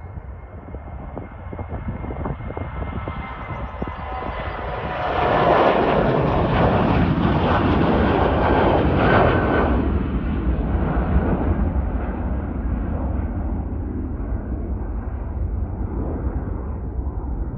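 Boeing 737-800 jet's CFM56-7B turbofan engines at takeoff power as the airliner rolls down the runway, lifts off and climbs away. The rumble grows, is loudest about five to ten seconds in as the jet passes, then slowly fades as it climbs out.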